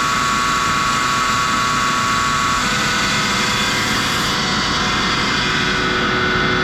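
Eaton 20 hp air-cooled rotary screw air compressor running steadily, with a whine of several steady tones over a hiss. About two and a half seconds in one of the tones stops, and about four seconds in the highest part of the hiss drops away.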